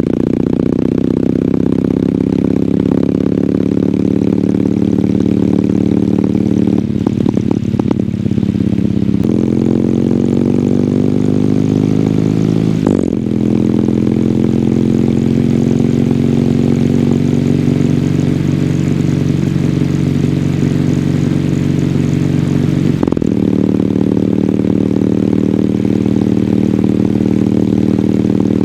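2022 Kawasaki W800's air-cooled parallel-twin engine through its stock exhaust, pulling while riding. The revs climb for a few seconds and drop sharply at a gear change about halfway through, with another abrupt change in engine note near the end.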